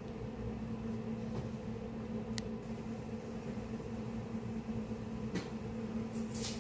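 A steady low hum, like an appliance or fan running, with a few faint light clicks.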